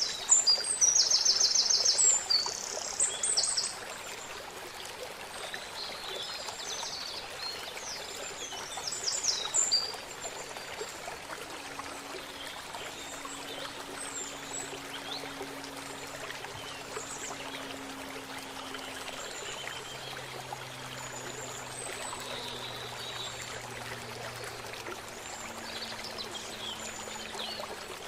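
River water flowing steadily, with birds singing over it in quick, high trills: loudest in the first few seconds and again about ten seconds in, then scattered calls. A faint low hum comes in about halfway through.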